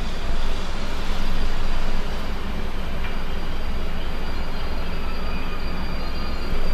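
SBB Re 4/4 II electric locomotive hauling a passenger train slowly into a station: a steady rumble of the locomotive and coaches on the track. It swells for about a second, a second in, and again near the end.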